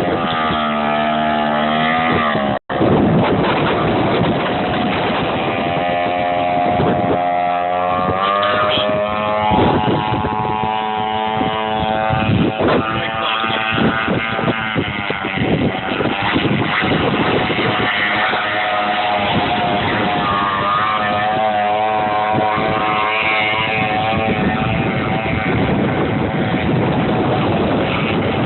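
A 51-inch RC boat's two-stroke weed-eater engine running, its pitch rising and falling again and again as the throttle is opened and eased. The sound cuts out for an instant about three seconds in.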